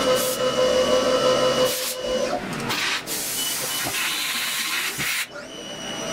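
HAAS TM-1 CNC mill's face-milling cutter cutting aluminum under flood coolant, a steady whine with a hiss of coolant. About two seconds in the whine stops as the cutter clears the part, leaving a hissing spray of coolant over the spinning spindle.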